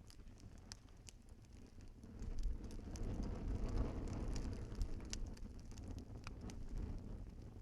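Wood fire in a fireplace crackling, with scattered sharp pops and snaps. A low rumble swells up about two seconds in and eases off near the end.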